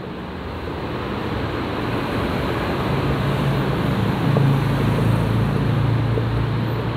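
Steady background rumble and hiss, with a low hum that swells from about halfway through. A few faint ticks come from a marker dotting the whiteboard.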